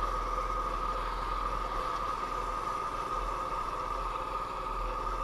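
Sears Roper mini bike's small engine running steadily while the bike rolls along, an even drone with no change in pitch.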